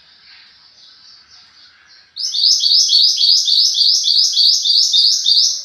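Mantenan gunung songbird song as used for masteran (song tutoring): faint high twittering, then about two seconds in a loud, fast string of repeated high downslurred notes, roughly three a second, that stops near the end.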